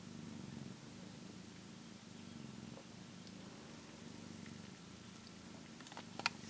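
Cat purring steadily in a low rumble, with two short sharp clicks near the end.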